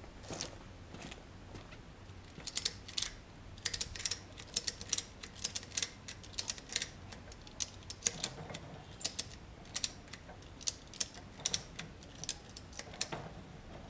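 Ratchet tie-down strap being cranked by hand, its pawl clicking in quick, irregular runs as the strap tightens and takes the weight of a motorcycle's front end. The clicking starts a couple of seconds in.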